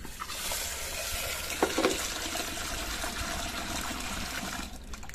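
A thin stream of water pouring into an aluminium pressure-cooker pot full of urad dal, filling it to rinse the lentils. The pouring runs steadily and stops near the end.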